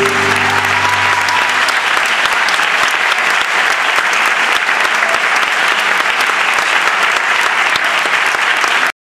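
Audience applauding at the close of a flamenco performance, as the last held note of the music fades out in the first second or so. The clapping is dense and steady, and it cuts off suddenly near the end.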